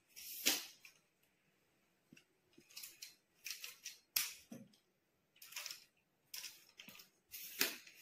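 Amazon Basics tripod being extended, its leg sections sliding out and the plastic leg-lock clips clicking: about a dozen short, sharp clicks and clacks at irregular intervals.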